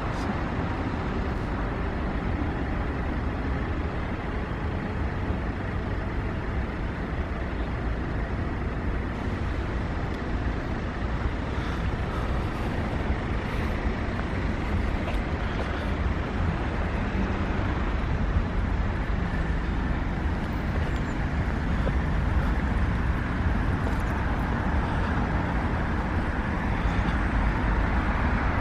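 Steady city road traffic: a continuous rumble of passing cars with no single vehicle standing out.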